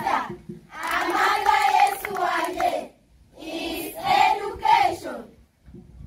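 A group of children singing together in unison, in two phrases of about two seconds each with short breaks between.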